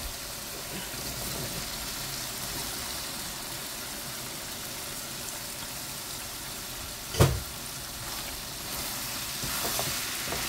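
Chicken and spice filling sizzling steadily in a nonstick wok, with one sharp knock about seven seconds in. Near the end a wooden spoon stirs diced boiled potatoes through it.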